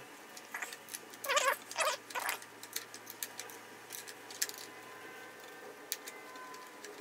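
Small steel wrench working the pivot nut of a stock aluminium motorcycle clutch lever: metal-on-metal clicks and scrapes, with a few short squeaky rasps in the first couple of seconds, as the nut is loosened to take the lever off.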